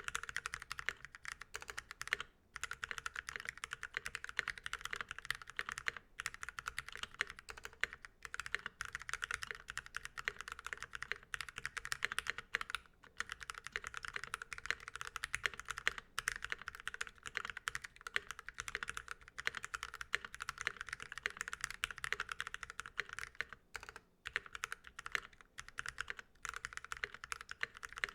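Continuous fast typing on a KBDFans KBD67 MKII mechanical keyboard with lubed Milky Gateron Yellow linear switches in a brass plate and PBT keycaps, with a few brief pauses between bursts of keystrokes.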